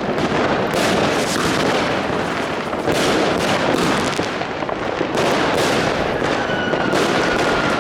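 Fireworks going off continuously: many overlapping bangs and crackles, with a couple of thin whistles slowly falling in pitch.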